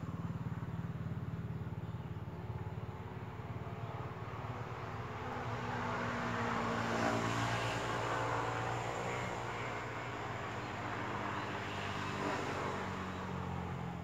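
Steady engine hum that swells to a peak about seven seconds in and then eases off: an engine passing by.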